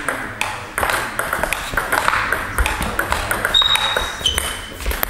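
Table tennis rally: the ball clicking off the bats and the table in quick, irregular succession. Two brief high squeaks come near the end.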